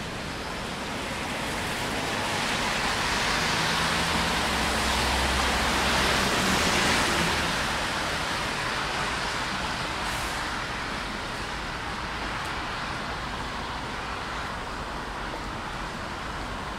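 A vehicle passing on a wet road: tyre hiss swells to a peak about seven seconds in and fades, with a low engine hum under it, over a steady hiss of rain.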